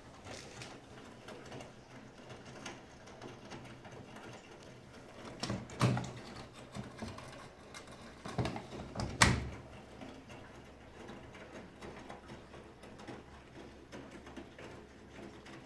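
Bosch Serie 6 iDos WAT28640 front-loading washing machine during a wash: drum turning quietly, with two bursts of louder bumps as the laundry drops, about six and nine seconds in.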